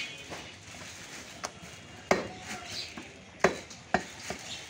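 Heavy meat cleaver chopping goat meat on a wooden log chopping block: about five sharp, uneven chops, the loudest about two and three and a half seconds in.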